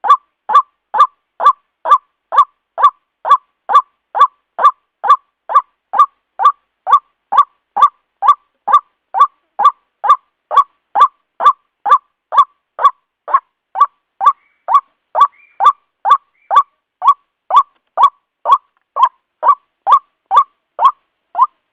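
White-breasted waterhen (ruak-ruak) calling, one short, sharp, honking note repeated evenly about twice a second.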